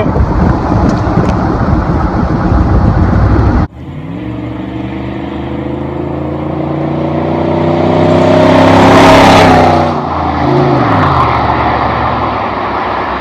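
Chevrolet Silverado's exhaust with the muffler cut off and the pipe dumped out the side. It opens with a few seconds of loud, rough running, then cuts abruptly to the truck accelerating with a steadily rising pitch. It is loudest about nine seconds in, drops in pitch and level as it goes past, and runs on steadily.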